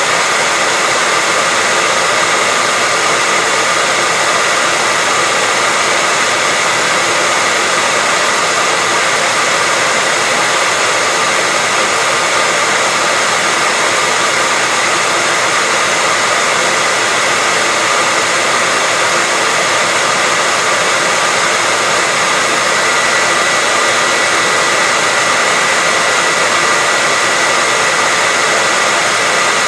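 Hair dryer running steadily: a constant loud rush of air with a faint high whine from its motor and fan.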